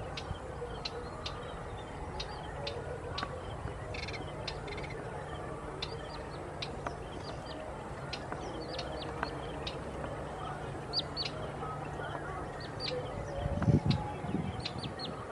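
Wild birds calling: scattered short, high chirps and chips throughout, over a steady low hum, with a louder low-pitched sound near the end.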